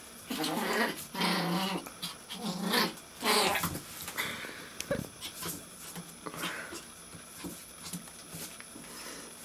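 Maltese puppy play-growling while tugging at a towel: four short, loud growls in the first four seconds, then only faint scuffles and clicks.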